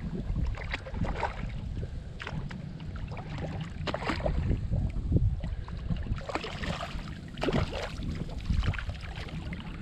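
Wind buffeting the microphone, with repeated splashing as a small hooked speckled trout thrashes at the water's surface on the line.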